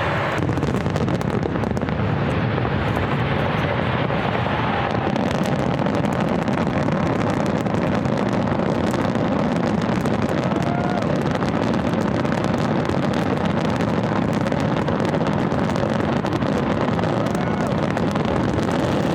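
Fireworks going off in a dense, unbroken barrage: a steady rumble of bursts laced with many sharp crackles and pops.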